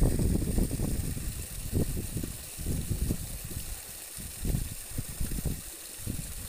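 Rainwater runoff from a flooded field spilling in thin streams down red stone-block steps, a steady faint splashing hiss. Irregular low rumbles of wind buffeting the microphone come and go over it and are the loudest sound.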